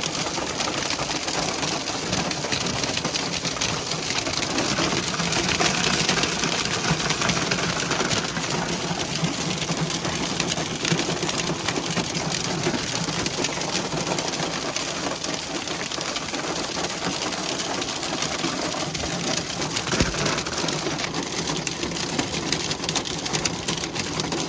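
Hail mixed with heavy rain pelting a vehicle: a dense, steady clatter of countless small hits on the roof and glass, with a low steady hum underneath.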